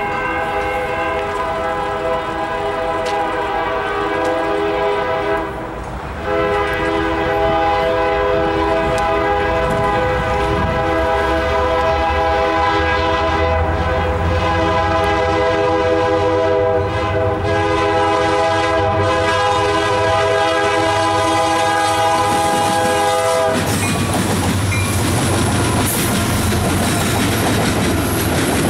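A diesel freight locomotive's air horn, on a Union Pacific SD70M leading the train, blowing for the grade crossing. It sounds one blast, breaks briefly about six seconds in, then holds a long unbroken blast. Near the end the horn stops and the locomotives roll past with engine rumble and wheel noise on the rails.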